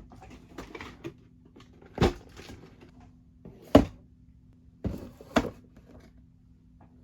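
Hands working on a plastic model kit: three loud, sharp clicks among softer knocks and rustles, over a low steady hum.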